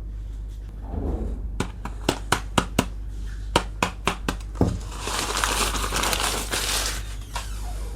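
Unboxing of a miniature plastic toy kitchen set: a quick run of sharp clicks and taps as small pieces are handled, then about two seconds of plastic packaging crinkling.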